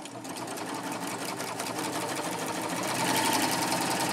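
Baby Lock Triumph serger running a wave stitch along folded fabric: a rapid, even chatter of needle and loopers. It grows louder over the first three seconds as the machine picks up speed, then runs steadily.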